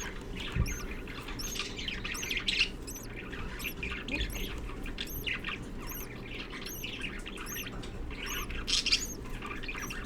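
Budgerigars chirping and chattering, with a thin high peep repeating about twice a second over a steady low hum.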